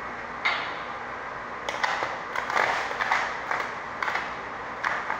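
Irregular clattering knocks and footsteps, about ten in all, as a person steps up onto a forklift, over steady background noise.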